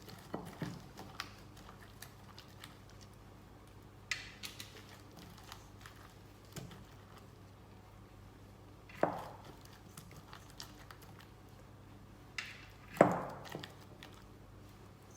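Batter-coated cauliflower florets being handled and set down on a paper-lined baking tray: scattered soft wet squishes and light taps, with two louder knocks about nine and thirteen seconds in.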